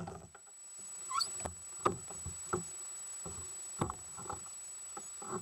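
Scattered light knocks and taps from gear being handled in a plastic fishing kayak, about ten of them spread over a few seconds. There is a short rising squeak about a second in.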